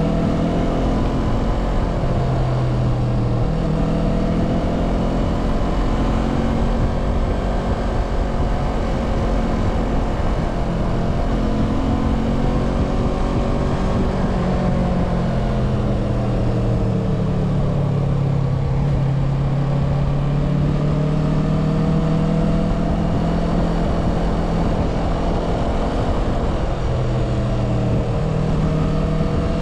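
Motorcycle engine running under way in city traffic, its pitch falling about halfway through as it slows and then climbing again as it picks up speed, over a low rush of wind and road noise.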